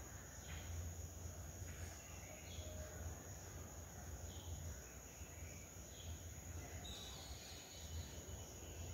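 Cumin seeds sizzling faintly in hot oil with scattered small crackles, as the spice tempers for a curry.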